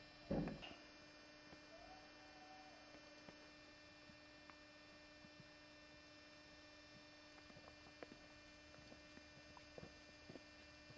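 Near silence with a steady, faint electrical hum. There is a brief louder thump about a third of a second in, and faint scattered ticks in the second half.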